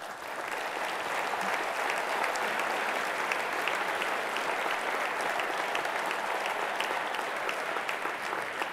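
A large audience applauding: steady clapping that swells within the first second, holds, and begins to fade near the end.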